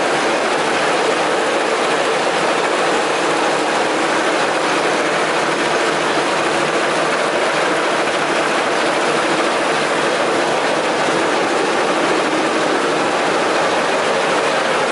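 Cotton gin machinery running steadily: a continuous loud mechanical clatter with a hum underneath as raw cotton passes over the rollers and the seed is separated from the lint.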